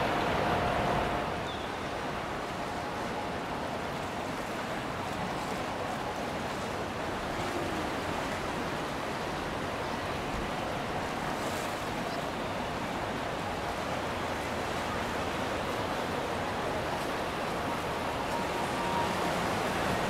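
Steady rushing of water and wind, with no clear pitch and no distinct events.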